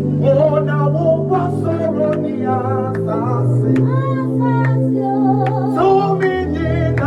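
Slow worship singing: voices sing a wavering melody over sustained chords that change every second or two.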